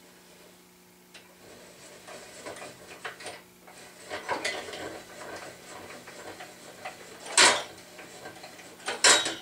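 Klutch drill press table being cranked up and down the column: a run of irregular clicking and rattling from the crank's rack-and-pinion gear, then two loud clunks near the end, about a second and a half apart. The clunks are the table jumping and skipping on the rack, which the owner is not happy with.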